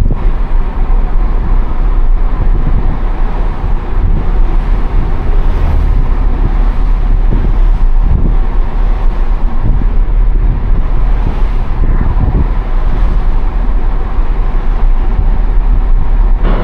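Subaru Impreza cruising at highway speed, heard from inside the cabin: a steady low rumble of tyre and wind noise with a few brief surges.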